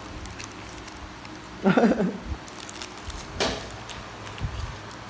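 Crinkling and rustling of a foil snack wrapper as it is handled and grabbed at, with a sharp crackle about three and a half seconds in. The loudest sound is a brief, low voice-like sound a little under two seconds in.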